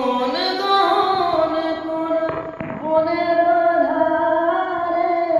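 A solo voice singing a Bengali song unaccompanied, holding long vowel notes and stepping between pitches without clear words.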